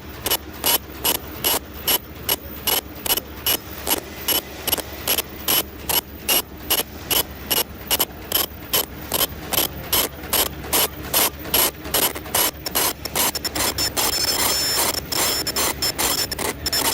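Face mask machine with inward ear-loop folding running, clacking in an even rhythm of about two to three sharp clicks a second. Near the end the clicks crowd together over a steady hiss with a high whine.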